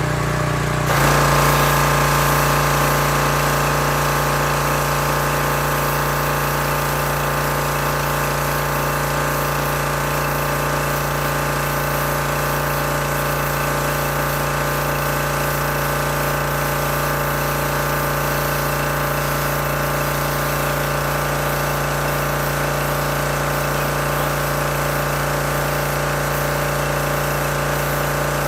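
Teande 4200 psi gas pressure washer with its 7-horsepower engine running steadily under load, water spraying from the wand at high pressure. About a second in, the sound steps up and a hiss joins the engine as the spray starts.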